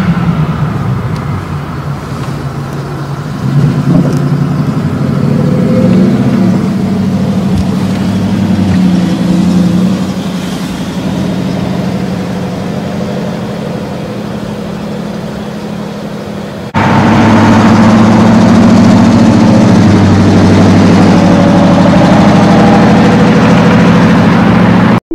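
Engine and exhaust of a camouflaged next-generation Ford F-150 Raptor prototype pulling away under throttle, a deep running note whose pitch climbs and falls as it accelerates; the spotters suspect a V8. About two-thirds through, an abrupt jump to a louder, steadier take of the engine running hard.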